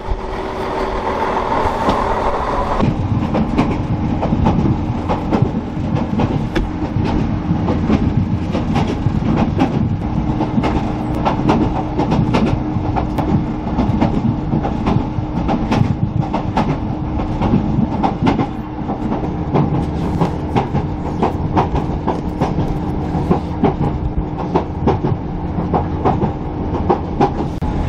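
Diesel multiple unit train heard from on board while running: a steady engine and traction drone with a held tone, and wheels clicking over rail joints. For the first three seconds or so the train is heard at the station platform, before the sound switches to the onboard ride.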